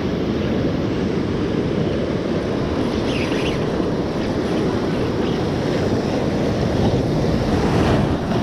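Ocean surf washing against shoreline rocks, a steady loud rush, with wind buffeting the microphone.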